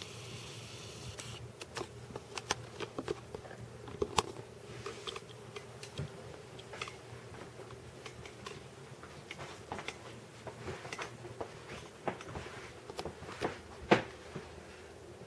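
Handling and movement noise from a handheld phone camera: irregular clicks, taps and rustles, the loudest about a second before the end, over a faint steady hum.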